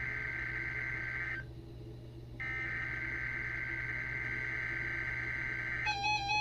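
Emergency Alert System SAME header bursts over weather radio: harsh, buzzing digital data tones. There are two bursts with a pause of about a second between them. Near the end the data gives way to a different pattern of stepped tones.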